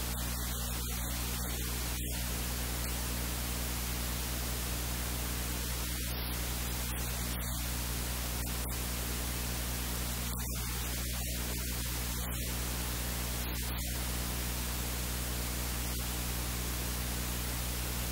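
Steady hiss with a low electrical hum underneath, unchanging throughout; no distinct cooking clinks or scrapes stand out.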